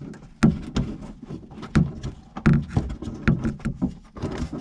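Hands working a door lock actuator loose inside a car door: irregular clicks, knocks and rattles of plastic and metal parts, with a few louder knocks through the middle.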